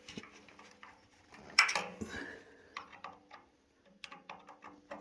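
Light clicks and rattles of electrical wires being pulled off a water heater's thermostat terminals and handled, with one louder scrape about a second and a half in.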